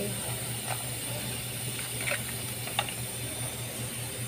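A steady low mechanical hum with a high hiss, and three short faint squeaks over it.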